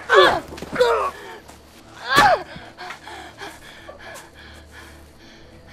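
A person crying out: three loud, high-pitched cries within the first two and a half seconds, followed by quick, ragged gasping breaths.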